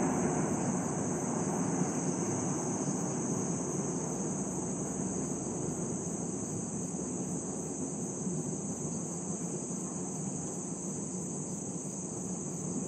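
Distant jet rumble of a four-engined Airbus A380 rolling out on the runway after landing, fading slowly. A steady high-pitched insect drone runs underneath.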